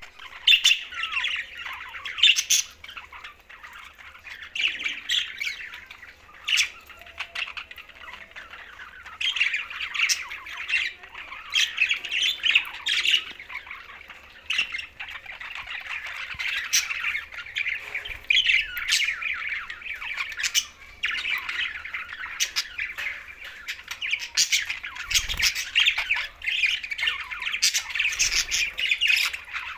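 Several budgerigars chattering and warbling without a break, dotted with frequent short, sharp squawks.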